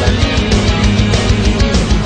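Loud heavy rock music: guitar over fast, driving drums.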